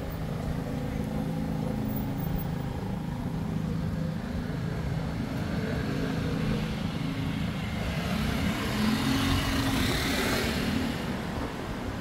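City street traffic: vehicle engines running steadily, with one vehicle passing close, its noise swelling about eight seconds in and fading near the end.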